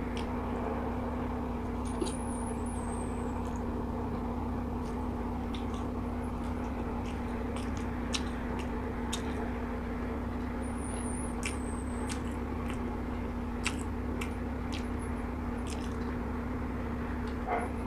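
Faint eating sounds of instant noodles lifted on a wooden fork and chewed, a few scattered small clicks and smacks, over a steady low hum.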